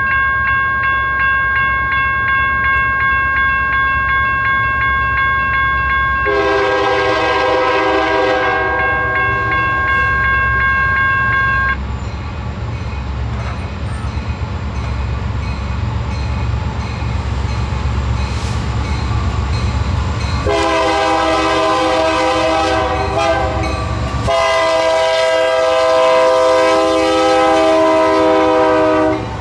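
Union Pacific freight train's lead diesel locomotive approaching and sounding its air horn three times: two blasts of a few seconds each, then a longer, louder blast as the locomotives pass, over a steady low engine rumble. A steady high ringing tone runs under the first part and cuts off about twelve seconds in.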